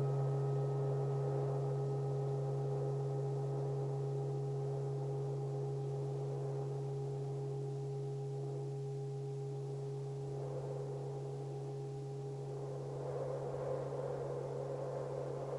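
Singing bowl ringing on after a strike: a strong, low, steady tone with fainter overtones above it that slowly fade out. A soft wind sound swells under it near the end.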